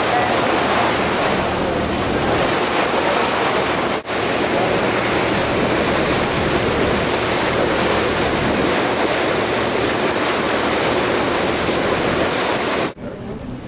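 Steady rush of wind and water noise heard from a moving boat, with wind buffeting the microphone. It breaks off for an instant about four seconds in, and near the end it drops suddenly to a much quieter hiss.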